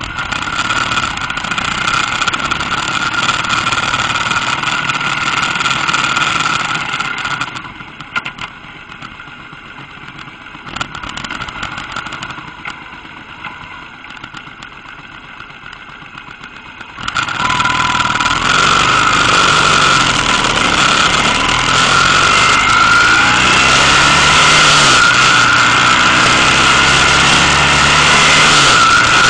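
Motorcycle engine running with wind rushing over the microphone. It quiets for several seconds about a third of the way in, then gets louder again as the bike accelerates, the engine note rising in pitch over the wind.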